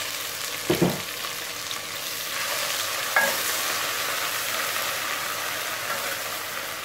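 Garlic, ginger and green chilli paste sizzling in hot oil with fried onions in a steel pot, stirred with a wooden spoon. Two short knocks, about a second in and again about three seconds in.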